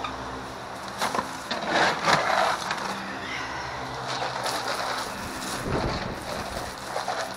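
Rustling and crunching of straw and pellet bedding being worked and spread over a coop floor, with a dull thump a little before the six-second mark.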